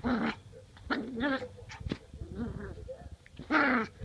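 A puppy play-growling and yipping in short pitched calls, about four of them, the loudest near the end, as it pounces on and mouths a hand in play.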